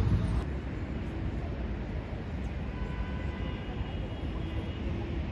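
Street ambience dominated by a steady low traffic rumble. It is louder for the first half-second, as though a vehicle is passing close by, then settles to an even rumble.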